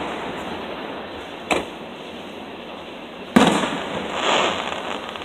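Aerial firework shells bursting overhead: a sharp bang about a second and a half in, then a louder bang about three and a half seconds in that trails away over a second or so.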